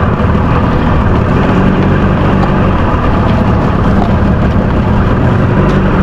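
A fishing boat's motor running steadily under way, with a hiss of wind and water over it, while the net is run out.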